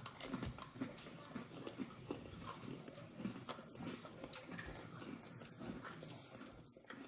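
Faint, irregular crunching and chewing as a child bites into an Oreo cookie and chews it.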